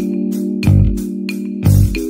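Background music: held organ-like keyboard chords over a low, thumping beat.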